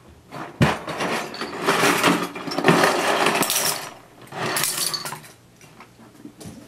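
Hard plastic toy construction pieces clattering and rattling as they are handled, in two bursts: a long one of about three seconds, then a shorter one of about a second.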